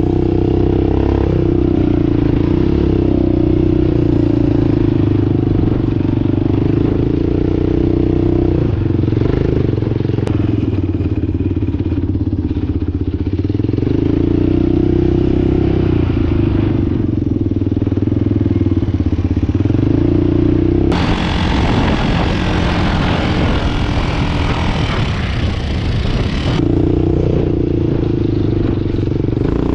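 Off-road vehicle engine running while riding over sand dunes, its pitch dipping and recovering several times with throttle and terrain. From about two-thirds of the way in, a louder rushing noise covers it for several seconds.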